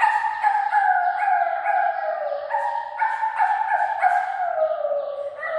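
Animal calls repeated in a continuous string, each call sliding down in pitch before the next starts higher.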